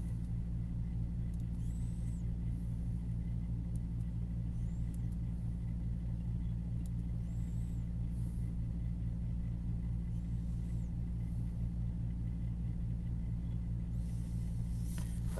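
Steady low hum at a constant level, with a few faint clicks.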